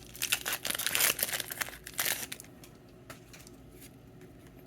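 Foil wrapper of a Pokémon booster pack crinkling and being torn open by hand, stopping after about two and a half seconds.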